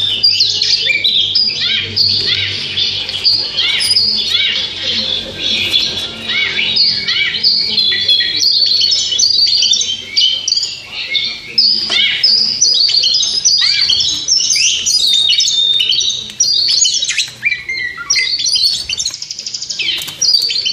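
A champion kajer songbird singing a long, unbroken run of quick, varied chirps, trills and whistles.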